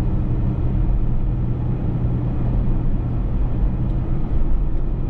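Steady road and engine rumble inside a moving car's cabin, with a constant low hum.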